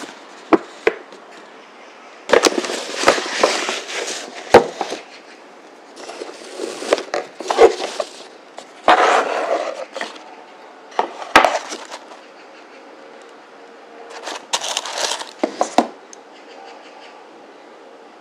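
Cardboard perfume gift box being opened by hand: several spells of paper and cardboard rustling from the box and its tissue wrapping, with sharp knocks and clicks of the lid and box between them.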